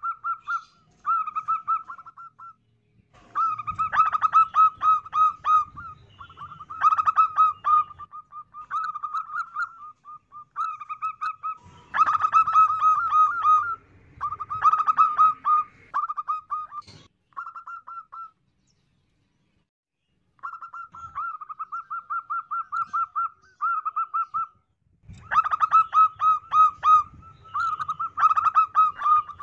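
Zebra dove cooing: repeated phrases of rapid, staccato trilling notes, some phrases much louder than others, with a pause of about two seconds a little past halfway. It is a female's call, used as a lure to draw in wild zebra doves.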